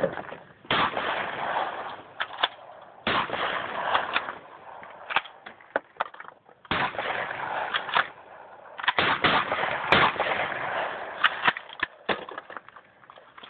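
Shotgun blasts fired in a series, about six in all, each sharp crack followed by a rough second-long tail, with short sharp clicks between the shots.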